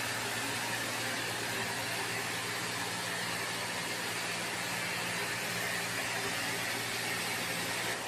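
Steady machinery hum with a constant hiss, unchanging throughout.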